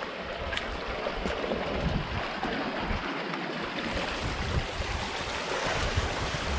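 Wind buffeting the microphone over a steady rushing wash of surf, with a few faint clicks in the first couple of seconds.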